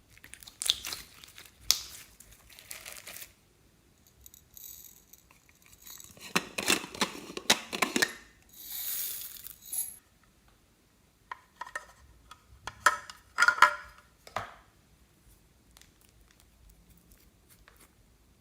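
Hands handling plastic piping bags and slime: rustling, crinkling plastic in several bursts with small sharp clicks, the handling sounds stopping about three-quarters of the way through.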